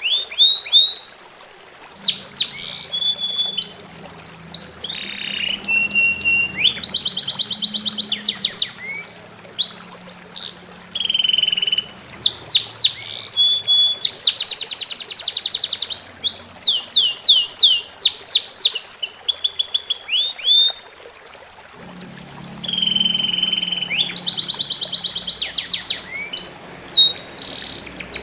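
Songbird singing loudly and continuously in rapid phrases of sweeping whistled notes and fast buzzy trills, breaking off briefly twice. Faint trickling water runs underneath.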